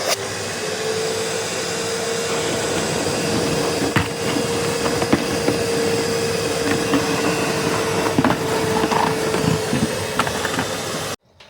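1700 W Panther gutter vacuum running steadily with a held hum, sucking a bucket of water through its hose to flush out grit and sludge, with scattered knocks as water and debris pass through. It stops abruptly near the end.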